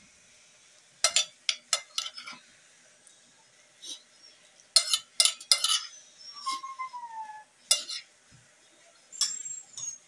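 Metal spoon and fork clinking and scraping against ceramic plates while eating rice with a saucy string-bean dish, in sharp clusters of clinks about a second in, around five seconds, and again near eight and nine seconds. A brief falling squeak sounds in the middle.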